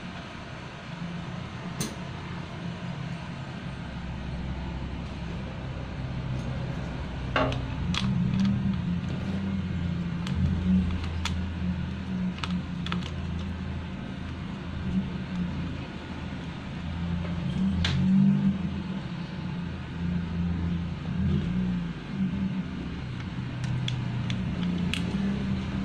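Sharp clicks and scrapes of a small screwdriver on the screws of a motorcycle's handlebar switch housing as it is being opened, a dozen or so scattered through, over a steady low engine rumble.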